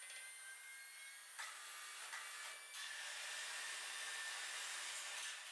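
Faint, steady mechanical whir of an AitalMac WJ5 waterjet's tilting loading table as it lowers a stone slab from upright toward horizontal. It grows a little louder after a second or so and drops away near the end.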